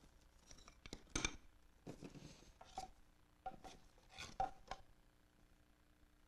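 Light knocks and clatter of small hard objects being handled and set down: a dozen or so sharp taps in uneven clusters, with a brief scrape around two seconds in.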